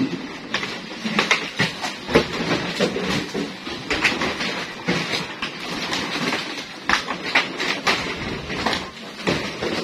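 Plastic crates clattering as they are tossed onto a pile and picked up, a continuous run of irregular knocks and rattles.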